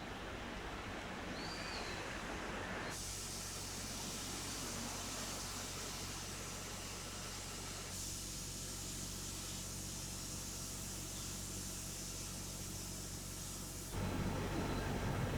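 Steady ambient background hiss with no clear single source. Its character changes abruptly about three and eight seconds in, and it grows louder near the end.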